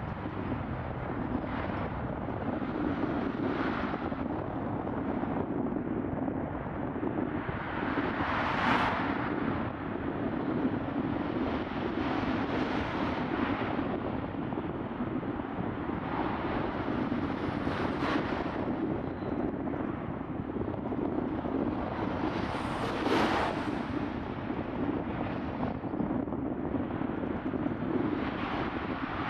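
Outdoor background noise: a steady low engine-like drone under a broad hiss, with brief louder swells of noise about 9, 18 and 23 seconds in.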